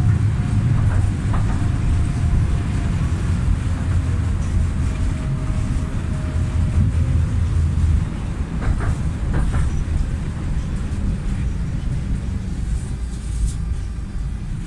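Belkommunmash BKM-60102 tram running, heard from inside the passenger cabin: a steady low rumble from the wheels and running gear, with a faint whine from the drive that slowly falls in pitch. The rumble eases a little about halfway through, and a few light clicks follow.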